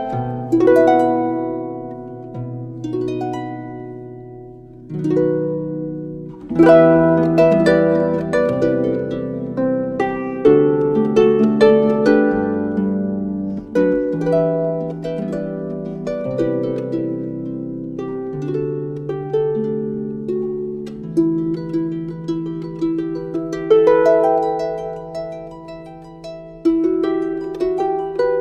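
Harp music: plucked notes and chords, each ringing out and fading, with fresh clusters of notes struck about every second or two.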